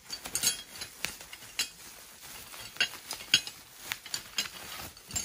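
Bubble wrap rustling and crackling as the steel pole sections of a target stand are pulled out of it, with light metallic clinks of the poles knocking together.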